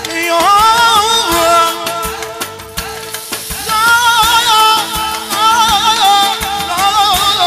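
Live manele music: a singer's wordless, heavily ornamented melismatic vocal line over keyboard chords and percussion, in two long phrases.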